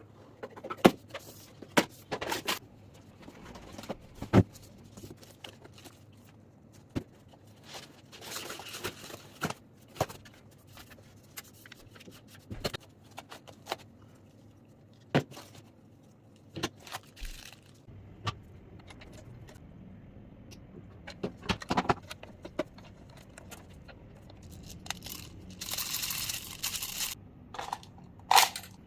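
Handling of an M-16A-style automatic airsoft rifle: scattered sharp clicks and knocks with bouts of rattling and scraping, such as parts being worked and the magazine or BBs being handled.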